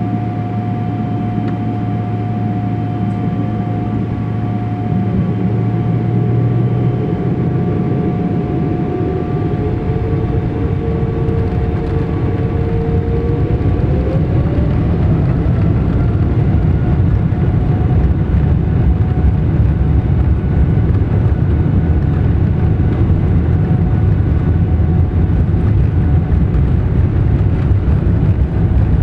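Boeing 777-300ER's GE90 jet engines heard from inside the cabin over the wing: a steady whine over a low rumble. About halfway through, the whine rises in pitch as the engines spool up, and the rumble grows a little louder.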